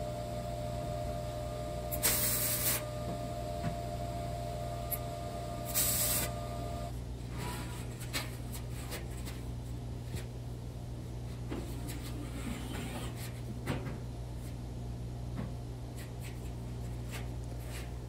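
Steady low hum of shop machinery, with two short hissing bursts about two and six seconds in. Later come scattered light knocks and clinks as a square steel tube frame is lifted and moved.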